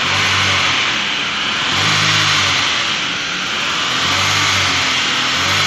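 Chevrolet Cruze 1.8 four-cylinder petrol engine running with a heavy misfire, its low note swelling and fading every second or two over a steady hiss. It is misfiring badly on the third cylinder, which the mechanic suspects is a broken exhaust valve.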